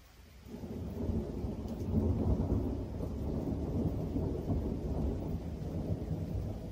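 Thunder from a passing thunderstorm cell, rumbling. It starts about half a second in, swells to its loudest around two seconds in, then rolls on low and steady.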